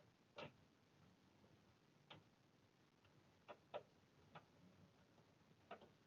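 Faint, irregular light clicks and taps, about six in all, two in quick succession near the middle.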